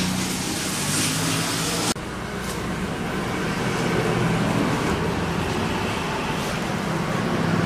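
Steady street traffic noise with a low hum. The background changes abruptly about two seconds in, where the recording is cut.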